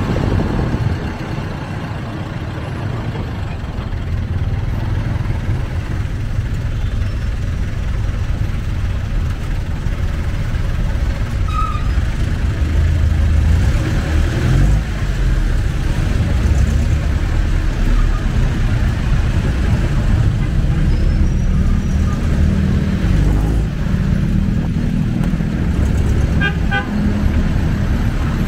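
Jeepney's diesel engine running under way, a steady low rumble with road and traffic noise heard from inside the open passenger cabin. Near the end a horn gives a few short beeps.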